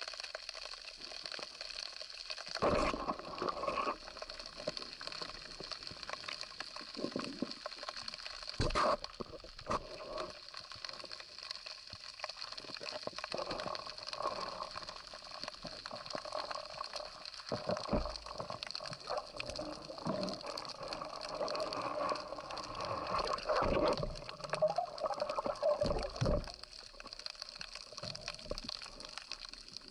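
Underwater sound through an action camera's waterproof housing: a steady watery hiss with a few sharp thuds and irregular knocking and rustling as a speared sea bass struggles on the spear shaft and is handled.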